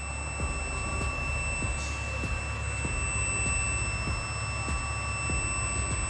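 Continuous high-pitched electronic beep tone, steady in pitch, over a low hum, with faint clicks about twice a second.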